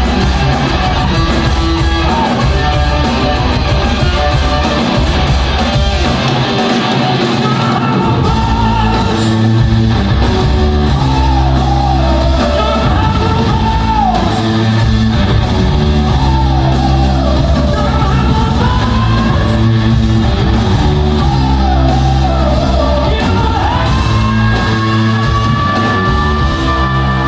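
Rock band playing live with electric guitar, bass and drums, heavy in the low end, the bass dropping out briefly about a quarter of the way in. The singer wails in sliding phrases and ends on a long held high note.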